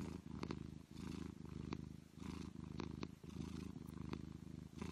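Domestic cat purring close to the microphone: a low, rapid rumble that swells and dips with each breath, about once a second.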